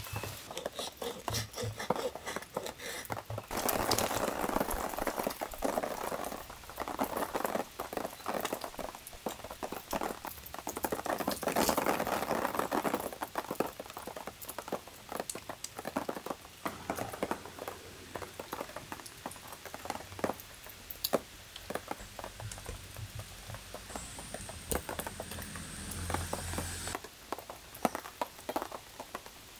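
Knife and fork cutting a crisp waffle on a bamboo board: two stretches of scraping as the knife saws through, among many light clicks and taps of the metal cutlery on the wood.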